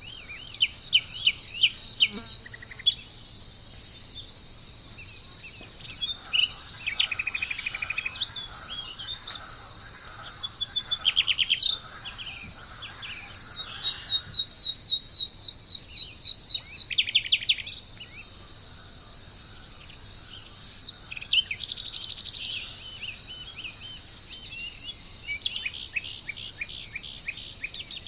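Several birds chirping and calling in short series of rapid high notes, over a steady high-pitched drone of insects such as cicadas or crickets.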